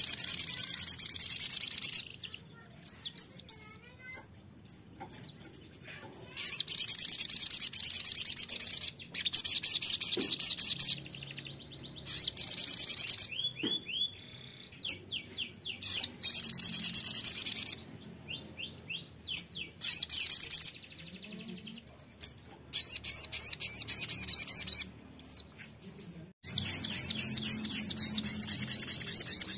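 Caged sogon sunbird singing: repeated phrases of fast, high-pitched trilling, each a second or two long with short pauses between them, and a few quick sliding notes partway through.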